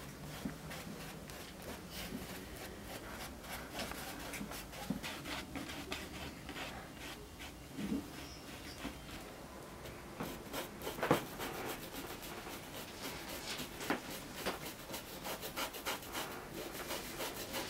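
Paintbrush bristles rubbing across canvas in many short, quick strokes, close up, with one louder stroke about eleven seconds in.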